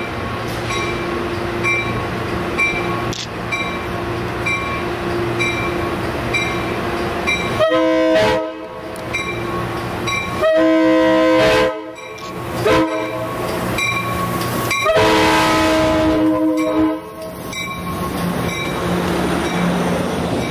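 Amtrak bi-level passenger train pulling in with its cab car leading. A bell rings steadily at about one and a half strokes a second, and from about eight seconds in the horn sounds a long, long, short, long pattern.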